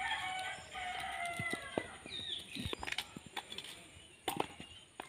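A rooster crows once, one long call of nearly two seconds, and a bird gives a short high chirp just after. Throughout, a spoon clicks and scrapes against the hard wood apple shell and steel bowl as the pulp is dug out.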